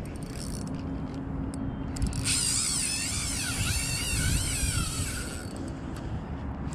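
Steady low engine hum and rumble. About two seconds in, a warbling high-pitched squeal wavers up and down for about three seconds.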